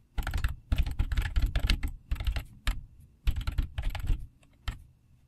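Typing on a computer keyboard: fast runs of keystrokes broken by short pauses, tailing off near the end.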